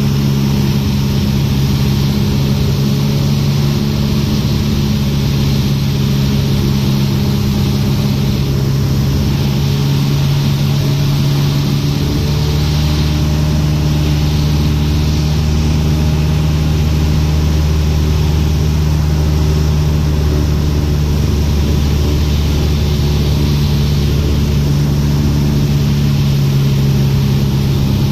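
Cessna 150's Continental O-200 four-cylinder engine and propeller droning steadily at approach power, heard from inside the cockpit with the hiss of airflow over it. The engine note shifts slightly about halfway through.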